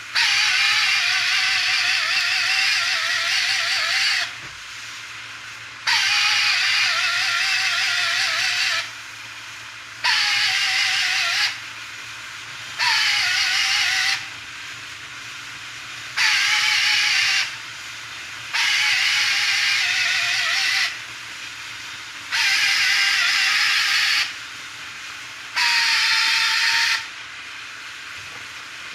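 Eight bursts of hissing spray from a pressurised nozzle, each one to three seconds long with short pauses between. Each burst starts with a whistling tone that dips in pitch and then holds.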